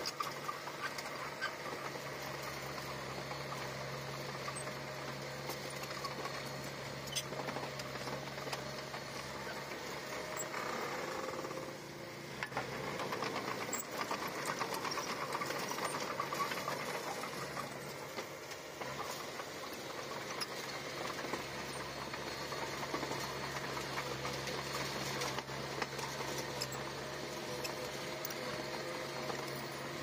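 Komatsu D20P bulldozer's diesel engine running steadily with a fast, even clatter, dipping briefly in loudness about twelve seconds in.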